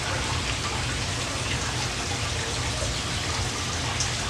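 Water splashing steadily onto the surface of a filled doggie pool used as a koi tank, a constant running-water sound with a low steady hum underneath.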